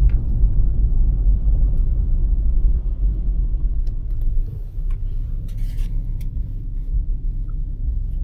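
Low, steady rumble of a car driving, heard from inside the cabin, with a few faint clicks.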